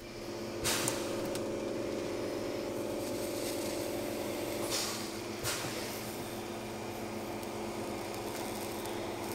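Jeweller's gas torch burning steadily with a hissing rush and a low hum, as its flame heats a small gold ring held in steel tweezers. A few short, louder surges come through it.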